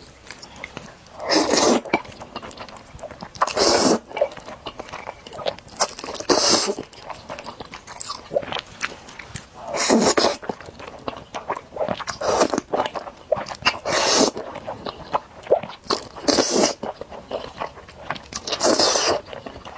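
Close-miked eating of spicy noodles: about eight loud eating noises come every two to three seconds, with softer chewing and mouth clicks between them.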